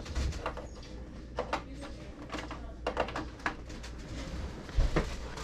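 Scattered light clicks and knocks of a headset and its cable being handled and moved aside on a computer desk, over a faint steady low hum.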